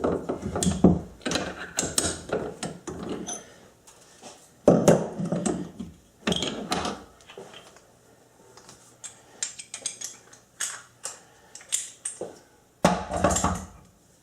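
Metal tools and parts being handled at a lathe: irregular clicks, taps and knocks, with louder clunks about five seconds in and near the end.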